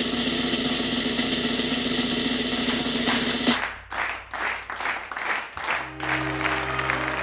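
Drum roll sound effect that cuts off about three and a half seconds in. A few short crashes follow, and sustained music chords start near the end.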